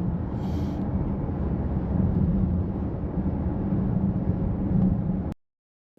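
Steady low rumble of a vehicle on the move, road and engine noise, which cuts off suddenly near the end.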